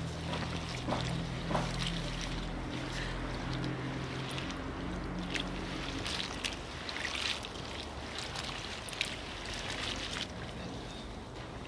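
Hands swishing and rubbing green beans in a bowl of water, with irregular splashes and wet rustling of the pods. A steady low hum sits underneath for roughly the first half.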